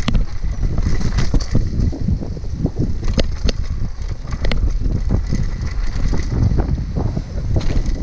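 Heavy wind buffeting the microphone as a TSW Jump mountain bike rides down a rough dirt singletrack, with frequent short rattles and knocks from the bike going over bumps.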